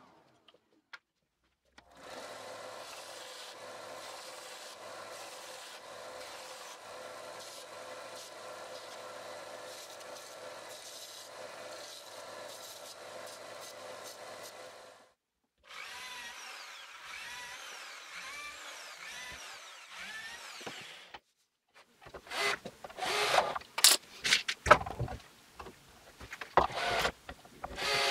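Woodworking power tools in turn: a table saw and a bench belt sander running steadily on a thin wooden strip, first for about thirteen seconds and then, after a short break, for about five, its pitch wavering. Near the end a cordless drill-driver drives screws into wood in short, loud bursts.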